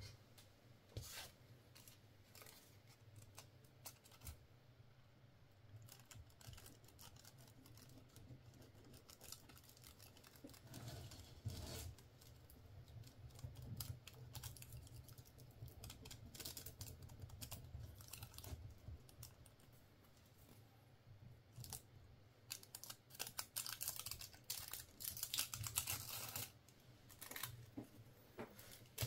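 Faint scattered clicks and taps of small handwork on a micro jig lure, over a low steady hum; the clicking gets busier near the end.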